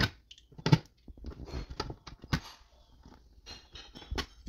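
A small screwdriver prying the filler plugs out of a steel door's glass-insert frame to expose the screws: irregular clicks, snaps and scraping. The loudest snaps come about a second in and again near the middle.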